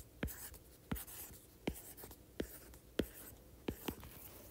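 Stylus tapping and sliding on a tablet's glass screen while handwriting words: sharp ticks about every 0.7 seconds as each stroke lands, with faint scratching between them.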